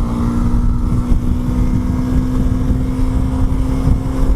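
2016 KTM Duke 390's single-cylinder engine running steadily at highway speed, its pitch creeping up slightly, under heavy wind buffeting on the microphone.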